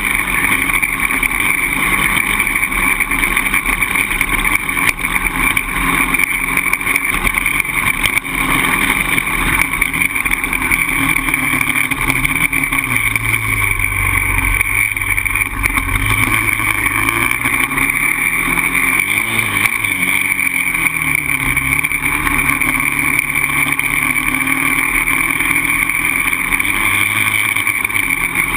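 Polaris Outlaw 525 quad's single-cylinder four-stroke engine running, its pitch rising and falling repeatedly as the throttle is worked.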